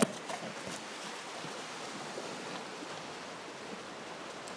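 Steady rushing of wind and surf on a beach, opening with a sharp double knock.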